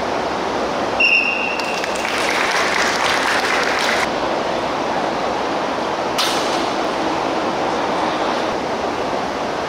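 A short, clear whistle blast about a second in, likely from a futsal referee's whistle. It is followed by about two seconds of hissing noise and a single sharp snap about six seconds in. A steady rush of noise, likely the hall's big wall fans, runs underneath.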